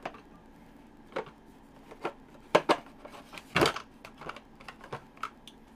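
Computer keyboard being typed on in sparse, irregular keystrokes, with one louder, longer knock about three and a half seconds in.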